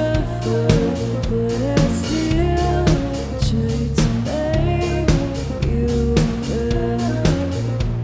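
Live band playing a rock song: drum kit keeping a steady beat under bass and guitar, with a voice singing.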